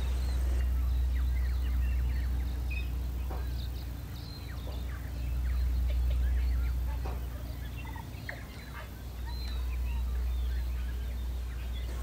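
Wind buffeting the microphone in gusts, a low rumble that swells and dips, with scattered short bird chirps over it.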